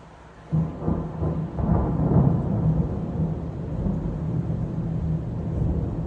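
Thunder: a sudden sharp crack of a close lightning strike about half a second in, then a long rolling rumble that carries on.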